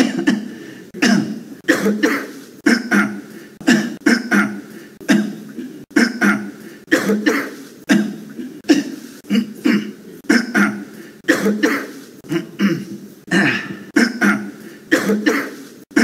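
Coughing repeated over and over: one short, sharp cough after another, roughly one to two a second, each dying away quickly.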